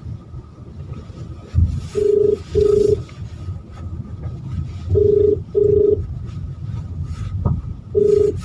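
Phone ringback tone through a speakerphone: a steady beep in double pulses, repeating about every three seconds while the outgoing call waits to be answered. Underneath runs the low rumble of the car moving slowly over a rough dirt track.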